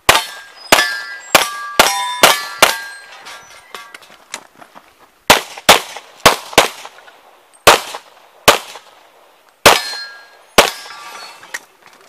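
Pistol shots fired in quick strings, about fourteen in all with a pause of roughly two seconds in the middle. Several shots are followed by the short ring of steel targets being hit.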